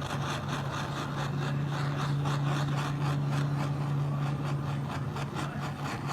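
Handheld gas torch flame hissing steadily with a fast flutter, heating heat-shrink tubing over a freshly soldered ring terminal. A steady low hum runs beneath it.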